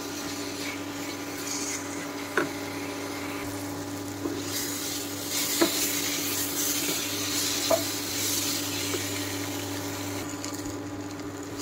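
Wooden spatula stirring and scraping moong dal, potato and pointed gourd through a sizzling spice paste in a nonstick pan as they fry together. The sizzle grows stronger in the middle, and the spatula knocks against the pan a few times, about two, five and a half and seven and a half seconds in, over a steady low hum.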